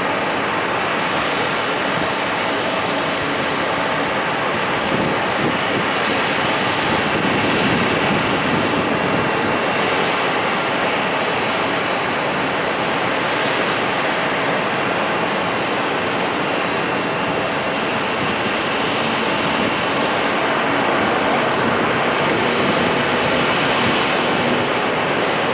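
Jet airliner engines running, a steady loud rushing noise with faint steady tones, swelling slightly a couple of times.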